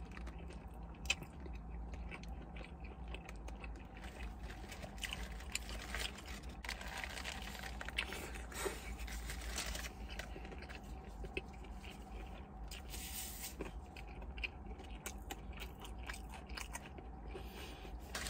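A person biting into and chewing a large double-patty cheeseburger with onion rings in it, with crunching and many small mouth clicks throughout.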